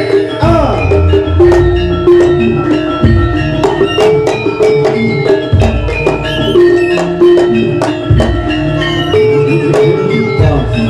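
Live jaranan music from a Javanese gamelan-style ensemble: held, ringing tones of tuned metal percussion over a steady beat of sharp drum strokes and deep gong-like bass notes.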